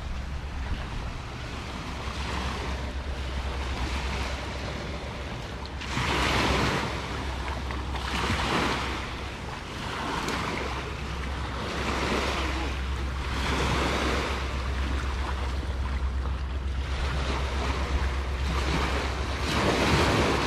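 Small sea waves breaking and washing up on a sandy shore, a hissing wash swelling and fading every two to three seconds, over a steady low rumble of wind on the microphone.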